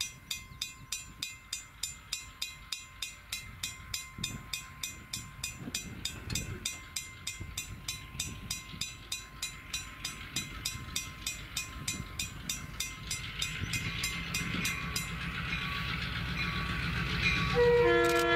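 Diesel switcher locomotive dressed as Mavis approaching slowly, its engine growing louder, while a bell rings rapidly, about three strikes a second, until it stops a few seconds before the end. Near the end the locomotive's horn sounds a loud chord.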